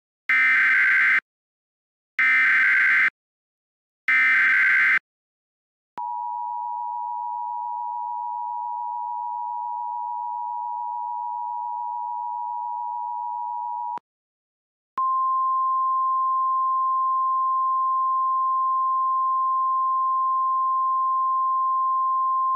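Emergency Alert System tones: three short bursts of the harsh SAME digital header about two seconds apart. Then comes the two-tone attention signal, held steady for about eight seconds. After a one-second pause, a single steady high tone, the 1050 Hz weather-radio alert tone, plays for about eight seconds.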